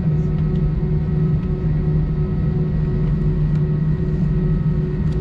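Steady cabin drone inside an Airbus A320-232 airliner: a constant low hum with a steady higher tone over it, and a few faint ticks.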